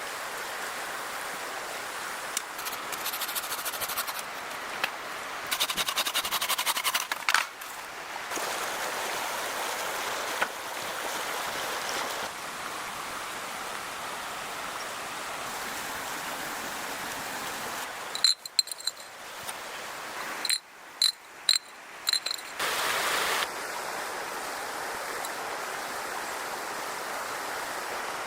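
Steady rushing outdoor noise, broken by a few sharp knocks and abrupt drop-outs about two-thirds of the way through.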